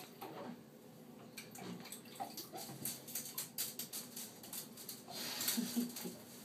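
Bathwater in a tub splashed and stirred by a baby moving about, with scattered small clicks and taps, and a short stretch of louder sloshing a little after five seconds in.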